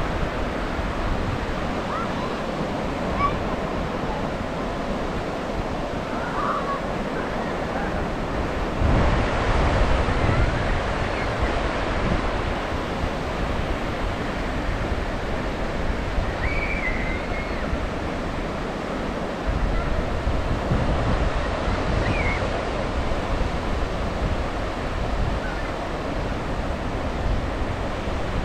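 Ocean surf washing onto a sandy beach in a steady rush, swelling louder twice as bigger waves break, about nine seconds in and again about twenty seconds in.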